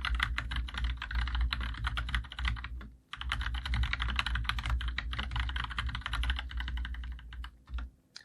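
Fast typing on a COX CK108 BT full-size mechanical keyboard with linear Gateron Yellow switches and doubleshot PBT keycaps: a dense run of keystrokes, with a short break about three seconds in and a last few strokes near the end. The strokes sound solid and heavy, with a slight ping.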